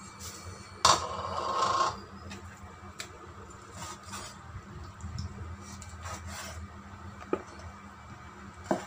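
Cleaver cutting raw chicken on a wooden cutting board: a sharp knock about a second in, a second of scraping and rubbing on the wood, then scattered light knocks of the blade on the board.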